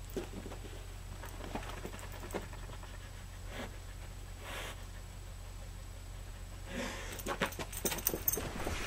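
A Portuguese Water Dog sniffing the carpet once about halfway through, then her collar tags jingling and her feet moving as she gets up and walks off near the end, over a steady low hum.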